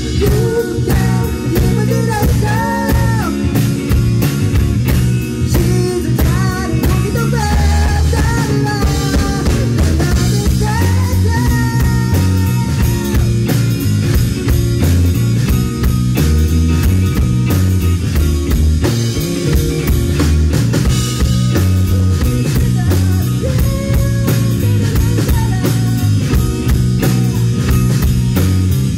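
A three-piece rock band playing live: electric guitar, electric bass and a Pearl drum kit keeping a steady beat, with a male voice singing over it in the first half.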